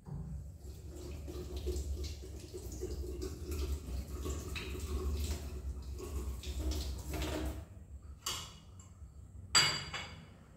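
Tap water running into a kitchen sink while kitchenware is rinsed under it, with small clatters; the water stops after about seven and a half seconds. Then two sharp clinks of dishes or utensils, the second the loudest.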